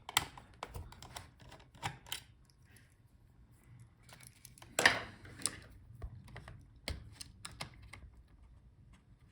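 Scattered light clicks and plastic taps of hands working on an opened laptop's hard drive caddy and its connector. The loudest is a brief scraping rustle about five seconds in.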